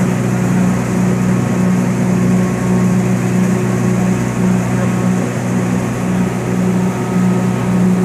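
Sawdust grinding plant running: the grinding machines and cyclone blowers make a loud, steady drone with a low hum that wavers slightly.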